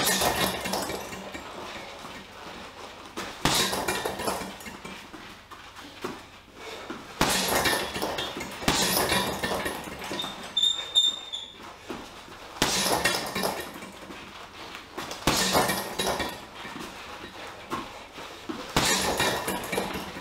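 Boxing gloves punching a Leone heavy bag in quick combinations: about seven flurries of hits a few seconds apart, each with a clinking rattle from the bag's hanging chain.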